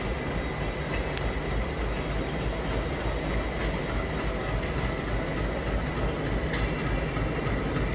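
Suburban electric local train running along the line: a steady rumble of wheels on rail with a few faint clicks and a thin steady high tone.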